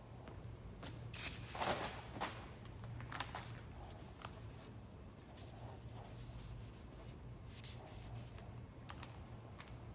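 Sandpaper rubbing over the cured epoxy coat of a carbon-fibre rigger in short, scattered hand strokes. The strokes are loudest in a cluster about a second or two in and fainter after, with a faint steady hum underneath.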